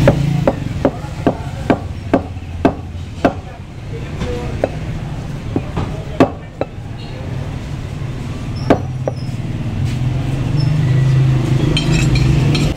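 Butcher's knife chopping goat meat against a wooden chopping block: quick, even chops about two or three a second for the first few seconds, then only an occasional chop. A low rumble runs underneath and grows louder near the end.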